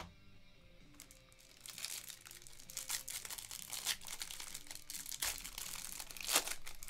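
Clear cellophane wrapper on a pack of trading cards crinkling and tearing as it is opened and pulled off, with the sharpest crackle near the end. A light plastic click at the very start as hard card cases are set down.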